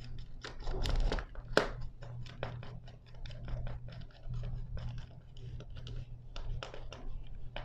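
Screwdriver turning and tightening the terminal screw of an RCCB (residual current circuit breaker) to clamp the neutral wire. It makes a run of small, irregular clicks and scrapes of metal and plastic.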